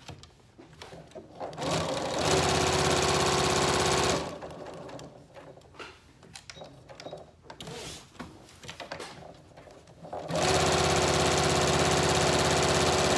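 Janome electric sewing machine stitching through layered cotton fabric in two steady runs: the first starts about one and a half seconds in and stops about four seconds in, the second starts about ten seconds in and keeps going. Between the runs come small clicks and rustles of the fabric being handled.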